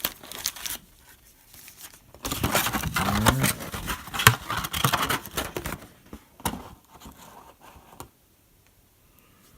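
Plastic wrapping on trading card packaging being torn and crinkled by hand. There are scattered crackles at first, then a dense burst of crackling from about two seconds in to about six seconds, and then it dies away.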